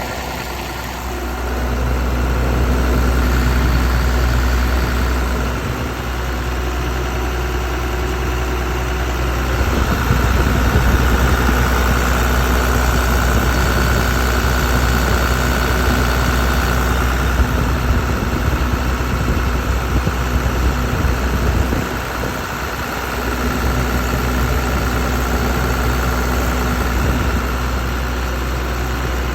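Komatsu PC210LC-7 excavator's six-cylinder diesel engine running steadily, swelling and easing a few times.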